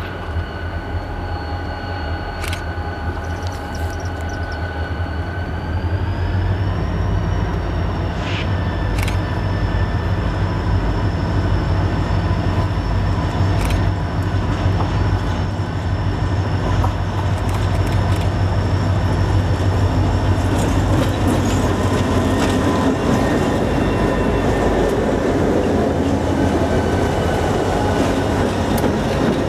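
Freight train led by EMD diesel locomotives approaching and passing: a steady low engine rumble that grows louder as it nears, with a thin high whine that steps up in pitch about six seconds in, and a few sharp clicks.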